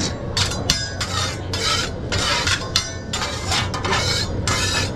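Metal spatula scraping across a steel teppanyaki griddle in repeated short strokes, about two a second, clearing leftover fried rice from the cooking surface.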